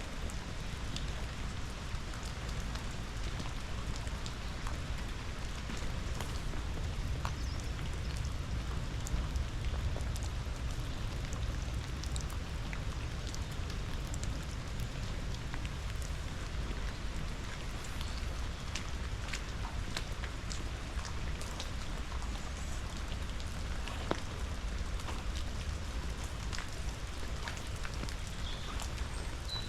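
Rain falling, with many individual drops ticking sharply, over a steady low rush of river water from the Jesmond Dene falls.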